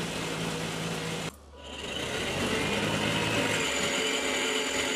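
Electric drive motor and gearbox of a children's battery-powered ride-on car whirring as its raised wheels spin freely. It cuts off suddenly just over a second in, then starts up again and runs steadily.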